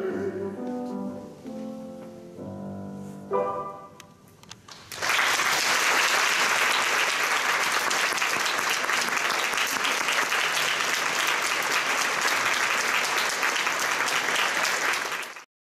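Grand piano plays the closing bars of a song accompaniment, ending on a final chord about three and a half seconds in that rings away. Then an audience applauds steadily for about ten seconds until the sound cuts off abruptly.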